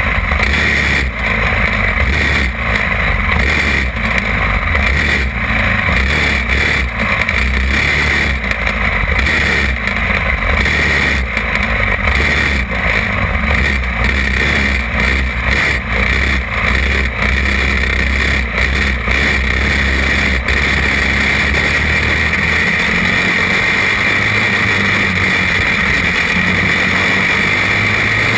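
Champ buggy kart engine running hard at racing speed, heard from on board the kart. The loudness dips and swells repeatedly for the first twenty seconds or so, then holds steadier.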